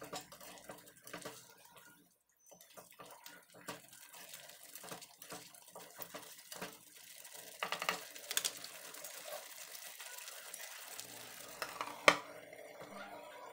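Spatula stirring a thick curry gravy in a metal pan, with irregular scraping and clicking against the pan. About twelve seconds in, a sharp clink as a glass lid is set on the pan, the loudest sound here.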